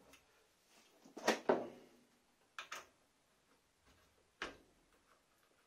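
Scroll saw's upper blade clamp being worked by hand to release the blade, with the saw not running: a few sharp metal clicks and knocks, the loudest pair about a second and a half in, two more soon after and one near the end.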